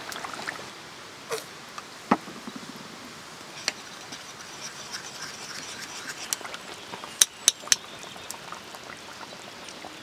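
A metal spoon clinking against a small ceramic bowl while flour and oil are mixed into a roux, with three quick clicks a little after seven seconds and a few single knocks earlier. A steady trickle of water runs underneath.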